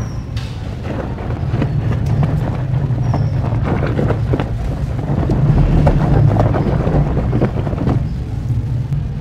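A hand swishing and sloshing through foamy soapy water in a plastic tub, making many small splashes that grow busier and louder about four seconds in, over a steady low rumble.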